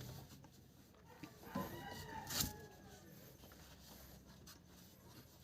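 A faint animal call that rises and falls in pitch, starting about one and a half seconds in and lasting about a second, with a sharp click near its end, over a low steady background hum.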